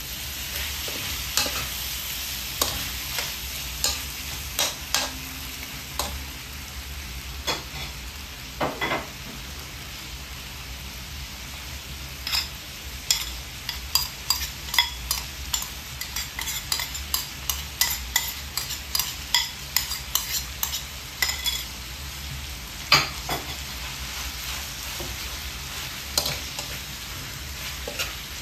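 Chicken and onions frying in a metal wok with a steady sizzle, while a metal ladle stirs and scrapes, clinking sharply against the pan over and over. The clinks come thickest through the middle and again near the end.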